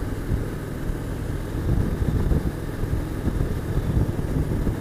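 Motorcycle running at steady road speed: a low engine drone under a steady rush of wind.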